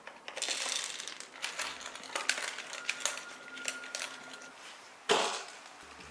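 A dog nosing a plastic puzzle feeder, its sliding plastic covers and the kibble inside clicking and rattling in quick, irregular clicks. There is a louder sudden clatter about five seconds in.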